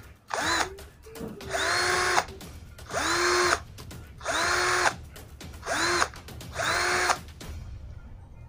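Mitsushi cordless drill's motor spinning up in about six short trigger pulls. Each pull is a whine that rises quickly, holds for under a second and cuts off. The drill is running from a 12-volt e-bike battery wired in place of its own pack.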